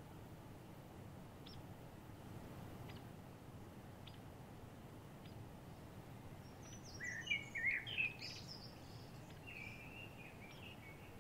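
Songbirds singing: a few short high chirps, then a louder, quickly varied song phrase past the middle, followed by a brief buzzy trill, over a steady low background rush.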